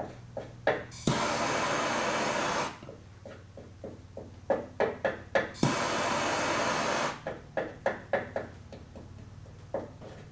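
Two bursts of steady torch-flame hiss, each about a second and a half long and each starting with a sharp click, between runs of short knocks, during lead and tin bodywork.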